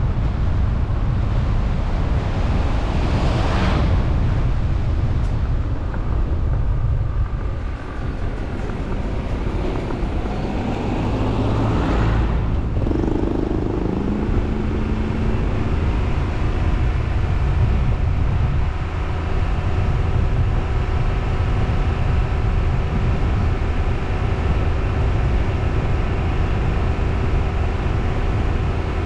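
A car driving along a road: a steady low rumble of road and wind noise, with the engine's hum. Two brief swells come about three and twelve seconds in. From about halfway on, a steady engine drone with several tones sits over the rumble.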